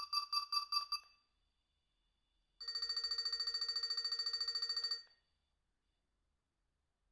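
Alcatel One Touch 217D mobile phone playing its built-in electronic ringtones through its small speaker. A high beep pulsing about seven times a second stops about a second in. After a short pause a lower tone with a rapid warble plays for about two and a half seconds and stops.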